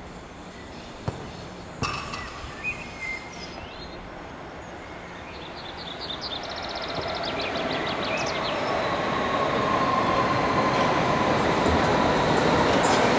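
Hamburg U-Bahn metro trains on an elevated line: the running noise of an approaching DT3 train grows steadily louder over the second half. A few sharp clicks come in the first couple of seconds.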